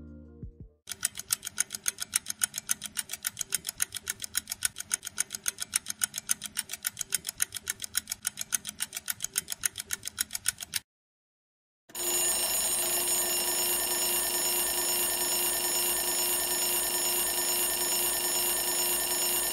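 Countdown-timer alarm sound effect. Fast, evenly spaced ringing pulses sound through the final ten seconds of the count, then stop suddenly. After about a second of silence, a steady, unbroken alarm tone marks zero.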